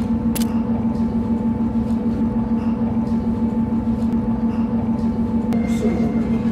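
A steady low droning hum with a held tone that never changes in pitch, and a single click near the end.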